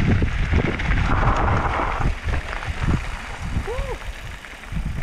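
Wind buffeting the microphone and mountain bike tyres rolling and crunching over loose gravel on a downhill track, heaviest for the first couple of seconds, then easing. A short tone that rises and falls comes about three-quarters of the way through.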